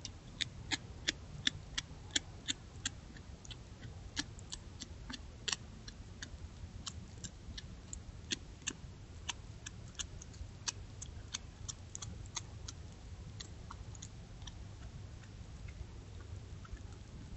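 Coyote crunching on deer bones: sharp, irregular cracks and clicks, densest in the first few seconds, over a steady low hum.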